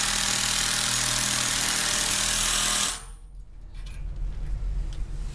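A cordless power tool running with a steady hammering rattle as it works a fastener hole or screw into the concrete wall at a pipe handrail's flange. It stops abruptly about three seconds in, leaving quieter handling noise.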